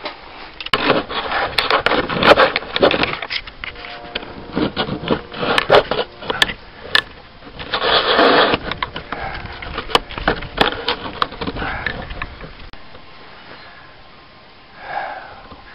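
Handling noise from a camera being moved and set onto a tripod: a jumble of clicks, knocks, rubbing and scraping that goes quieter for the last few seconds.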